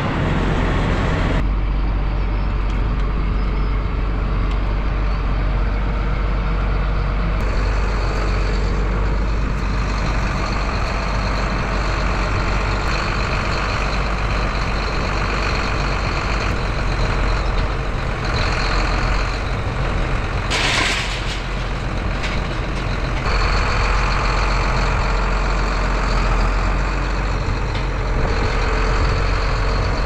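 Diesel engine of a John Deere four-wheel-drive tractor running steadily while hooked to a field cultivator, with one brief hiss about twenty seconds in.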